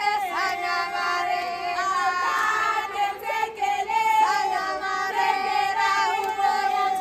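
High women's and girls' voices singing and cheering together in celebration, holding long notes that bend and shift in pitch.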